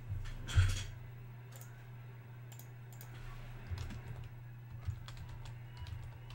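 Typing on a computer keyboard: scattered keystrokes, with a louder knock about half a second in, over a steady low electrical hum.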